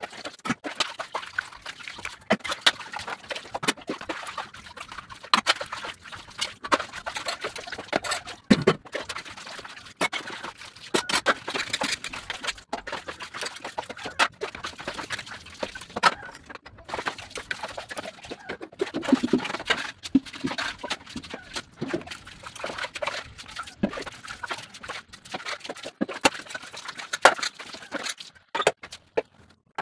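Stainless-steel dishes being washed by hand: irregular clinks and clatters of metal plates, tumblers and lids knocked together and set down, with water splashing.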